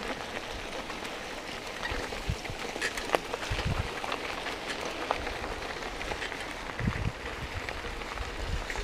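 Riding noise from a bike-mounted action camera on a rough road: a steady hiss full of scattered clicks and ticks, with a few low thumps of wind buffeting or jolts.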